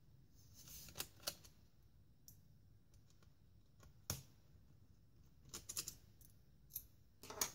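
Faint, scattered clicks and taps of hands and a small tool on a laptop's plastic underside as the base-panel screws are undone, about ten in all, several of them close together a little past the middle.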